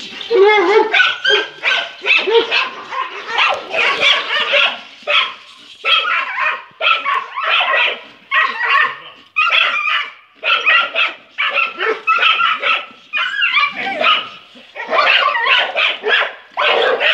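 Dog barking over and over in quick runs of barks with brief pauses between them.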